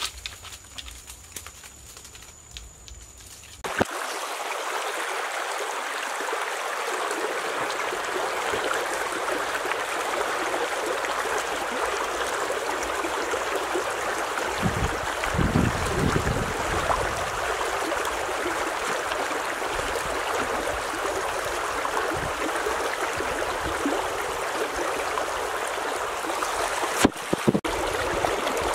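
Shallow stream running over stones, a steady rushing of water that sets in abruptly after a quieter first few seconds of faint ticks. About halfway through, heavier sloshing comes briefly on top of it.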